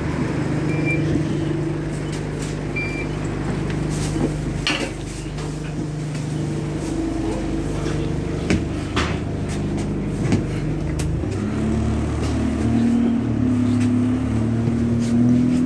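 Diesel engine of an Alexander Dennis Enviro 200 single-deck bus running at idle, heard from inside the bus, with a few sharp knocks and clicks. About eleven seconds in the engine note rises and changes as the bus moves off.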